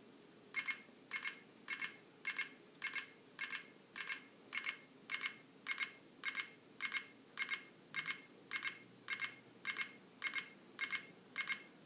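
Target FC1000 flip clock radio's alarm in buzzer mode: a high electronic beep rather than a buzz, repeating steadily just under twice a second.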